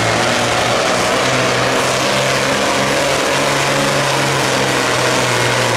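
John Deere classic super stock pulling tractor's turbocharged diesel engine running flat out under load as it drags the weight-transfer sled. The engine note holds steady throughout.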